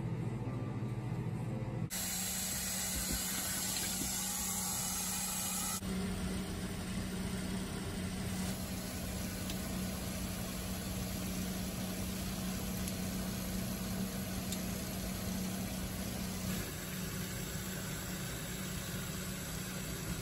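Running shower water, a steady hiss with a low hum beneath it. Its character changes abruptly at cuts about two, six, eight and a half and sixteen and a half seconds in.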